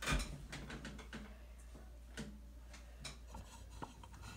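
Faint handling noise: a soft bump at the start, then scattered small clicks and taps over a steady low hum.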